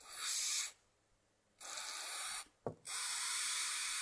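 Aerosol lubricant can hissing in three spray bursts, the last the longest, spraying into a Mikuni diaphragm carburetor to wet the needle and seat before a pop-off pressure test. A short sharp click between the second and third bursts.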